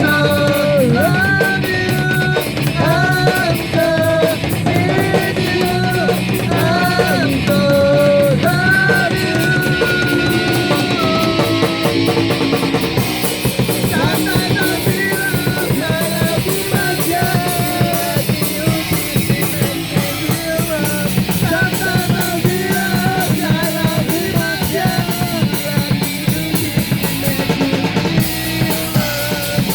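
A rock band plays with guitars and a drum kit. A held, bending melodic lead line runs over the band, which turns fuller and brighter about thirteen seconds in.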